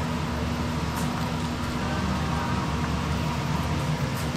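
Steady rumbling roar with a constant low hum from a large stainless stockpot of pig's trotters boiling hard over its burner, with a couple of faint clicks.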